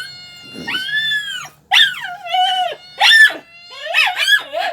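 A dog whining and whimpering in a run of about four or five high-pitched calls whose pitch rises and falls.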